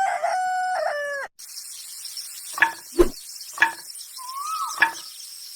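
Rooster crowing, with a falling end that cuts off abruptly about a second in, followed by a few short sharp clucks and one brief rising-then-falling call.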